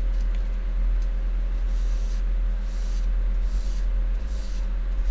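Paper tissue rubbed over the copper base of a graphics-card heatsink, wiping off old thermal paste in faint, regular back-and-forth swishes about once every second, over a steady low electrical hum.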